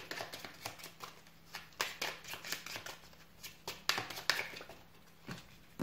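A deck of Lenormand cards being shuffled by hand: a run of irregular light card clicks and flicks, a few each second.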